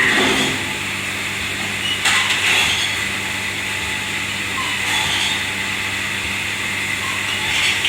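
Steady machine hum and hiss, with a few brief clatters about two and five seconds in.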